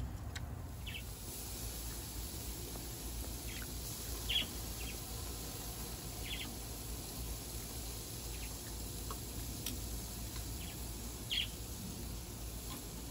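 Birds chirping now and then, short single calls scattered through, over a steady hiss and low background rumble.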